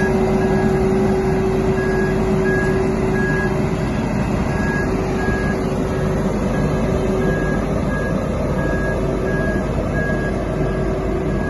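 DAF LF220 road sweeper with a Johnston VT651 sweeper body running, its engine and suction fan making a steady drone with a whine. A warning beeper sounds about twice a second throughout.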